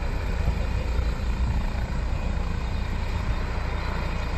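Helicopter's rotor and turbine engine running steadily: a dense low thrum with a rapid rotor beat.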